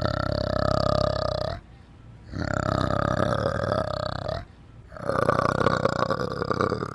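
An animal giving three drawn-out low calls, each about one and a half to two seconds long, with short pauses between them.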